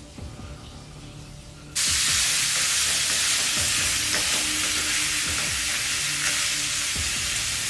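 Quiet background music for about the first two seconds, then a sudden cut to meat sizzling loudly in a hot frying pan as it is stirred with a wooden spoon.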